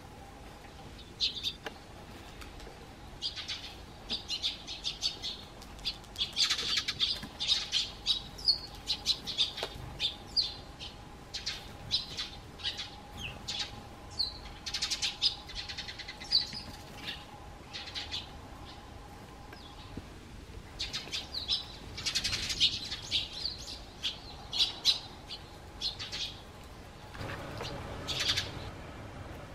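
Eurasian tree sparrows chirping in many short calls, in clusters, with bursts of wing flutter as they dust-bathe in gravel.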